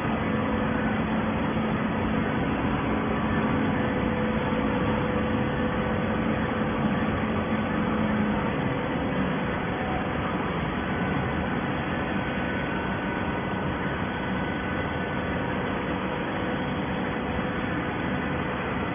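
Automatic-feed plastic bottle baler running: a steady mechanical noise with faint humming tones, the lowest of which fades out about eight seconds in.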